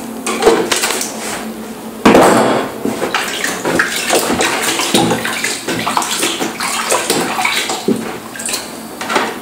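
Water splashing and sloshing in a plastic bucket as a hand swishes through it, with a sudden loud splash about two seconds in.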